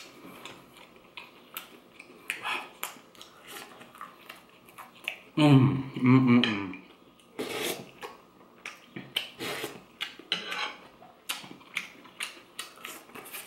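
Eating at the table: mussel shells and a metal spoon clicking and scraping against a ceramic bowl in many small irregular knocks, with a short hummed sound about halfway through.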